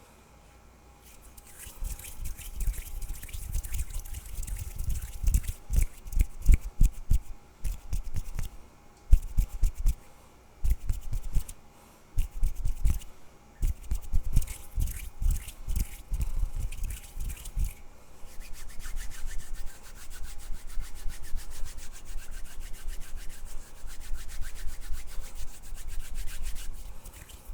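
Hands rubbing and brushing close to the microphone in irregular strokes, with dull low thumps. From about two-thirds through, the rubbing turns quicker, finer and more continuous.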